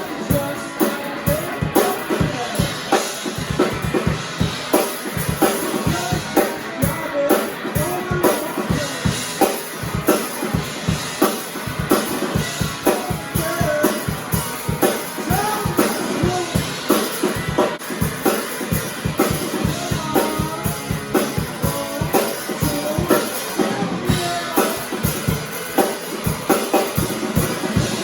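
Rock band playing loudly with the drum kit to the fore: a fast, steady beat of kick and snare over other instruments.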